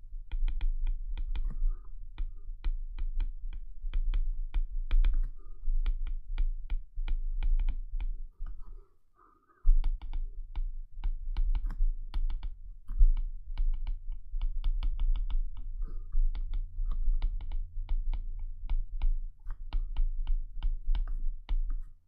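A stylus tapping and scratching on a tablet's glass screen during handwriting: a rapid, uneven run of sharp clicks, several a second, each with a low thud under it. The taps stop for about a second near the middle, then go on.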